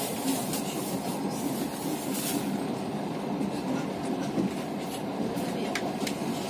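Passenger train running, heard from inside the carriage: a steady rolling rumble of wheels on rails with a few faint clicks.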